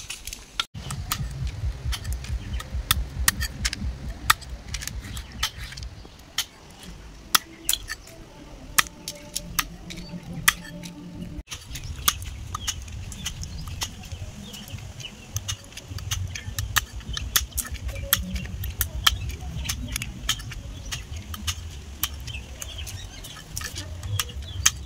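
A knife chopping through freshwater snail shells against a stone in quick, irregular sharp clicks and cracks, over a low rumble. The back end of each shell is being cut off so the snail can be drawn out.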